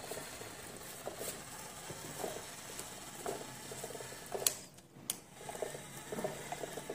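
Small electric gear motor of a homemade RC tractor running as it tows a trolley loaded with over 6 kg of bricks, with irregular clicks and knocks from the drive. It pulls the load without strain.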